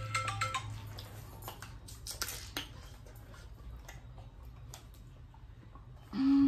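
A few short electronic beeps at the very start, then plastic water bottles crackling and clicking as they are handled and drunk from. Near the end a person hums a loud, steady "mm" with mouth closed.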